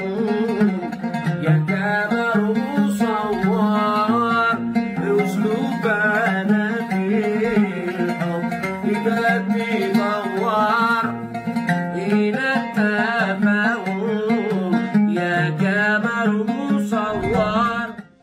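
Man singing a Sanaani song in an ornamented, wavering melodic style over plucked-string accompaniment. It cuts off near the end.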